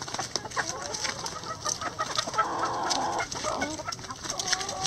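A mixed flock of hens, Barred Rocks and red hens, clucking and calling as they feed, with many short sharp taps from beaks pecking at leafy greens. A call rises in pitch near the end.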